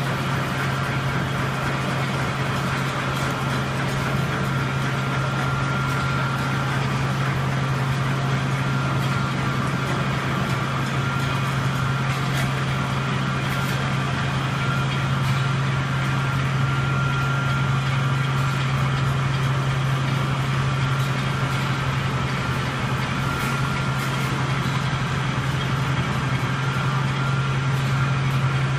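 Sawdust rotary drum dryer line running: a steady low machinery hum with a faint high whine above it.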